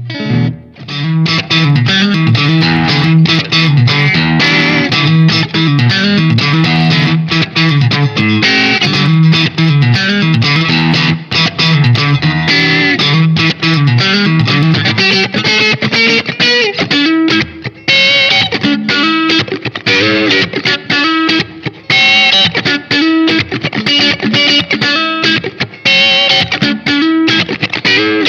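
SQOE SETL960 HH electric guitar with humbucker pickups, played with distortion: a fast, busy riff on the low notes that shifts to higher lines a little past halfway.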